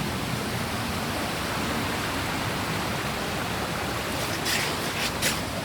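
Mountain valley stream, a steady rush of flowing water. A few brief sharp sounds come near the end.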